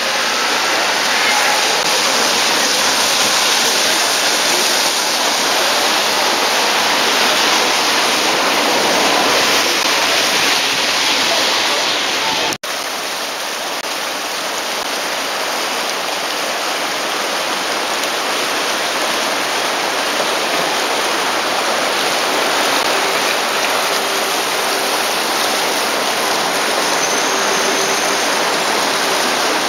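Steady rushing of the Rhine's fast current along the embankment, an even hiss without rhythm. It breaks off for an instant about twelve seconds in and resumes slightly softer.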